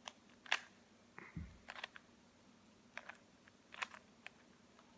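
Standard 3x3 plastic Rubik's Cube being turned by hand: sharp, irregular clicks as the layers snap round, with a soft thump about a second in.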